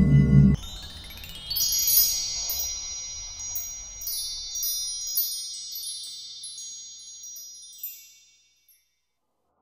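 Loud intro music cuts off about half a second in, giving way to a shimmering cascade of high chime tones, like wind chimes, that ring and slowly fade away.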